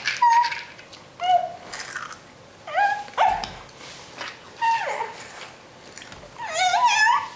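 Toddlers imitating a dog with high-pitched yips and whines: about five short calls that glide up and down, the last one longer and wavering. A light knock about three seconds in.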